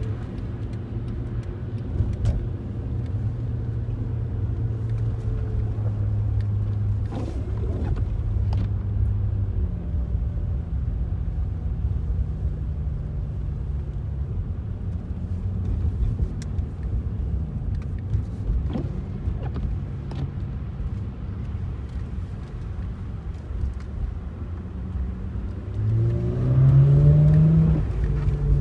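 Car driving with a steady low engine and road rumble. Near the end the engine note rises and gets louder as the car accelerates.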